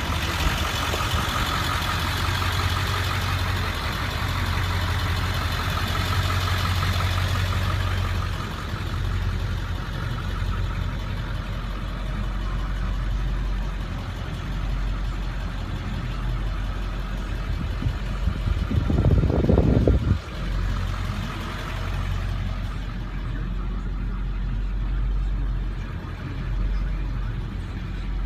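A 7.3-litre Powerstroke V8 turbo diesel idling steadily, sounding more muffled from about a third of the way in. About two-thirds of the way in comes a brief, louder thump.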